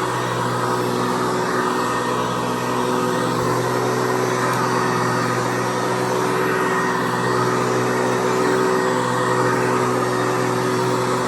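Hoover Convertible Elite U4153 upright vacuum running at a steady speed, its motor and 12-blade plastic fan giving a constant whine with several held tones over a rushing hiss.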